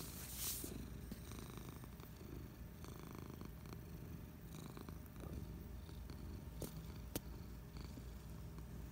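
Domestic cat purring steadily close up while being stroked, with a brief brushing rustle about half a second in and two sharp clicks a little past the middle.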